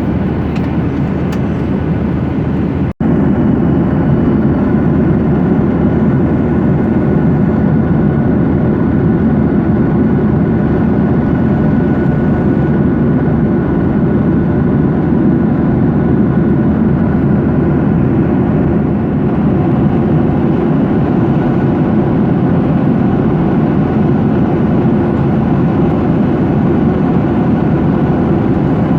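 Airliner cabin noise in flight: the steady, even hum and rush of the jet engines and airflow, with a few faint steady tones in it. About three seconds in, there is a split-second break.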